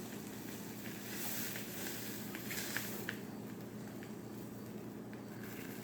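Grilled cheese sandwich sizzling faintly in a frying pan on the stove, with a few light clicks; the hiss eases after about three seconds.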